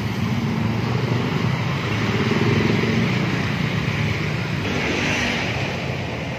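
A motor vehicle engine running steadily, a little louder in the middle, with a brief hiss about five seconds in.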